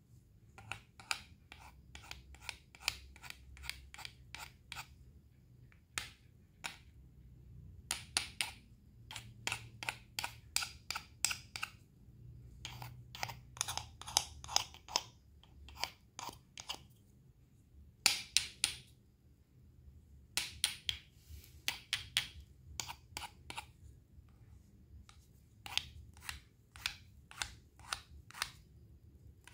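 Knife cutting through fresh fruit and vegetables on a cutting board: runs of crisp, sharp cuts and taps, several a second, broken by short pauses.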